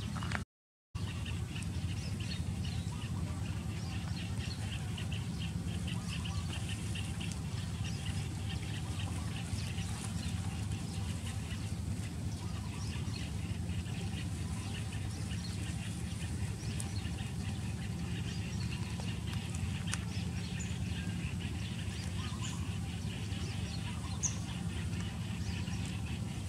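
Birds calling outdoors: a quick run of short, high calls through the first half, thinning out later, over a steady low hum.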